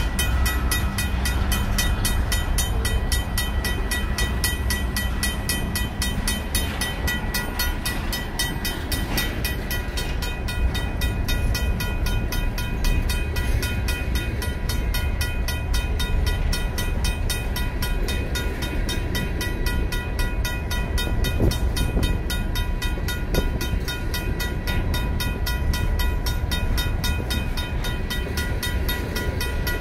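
Union Pacific freight train's covered hopper cars rolling past over the rails with a steady low rumble. The crossing's RACO mechanical bell rings without pause, its strikes evenly spaced.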